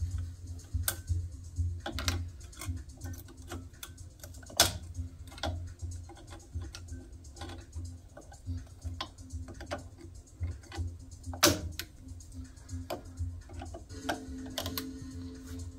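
Scattered metallic clicks and knocks from hand tools and suspension parts being handled, with a louder knock about four and a half seconds in and another near eleven and a half seconds, over faint background music.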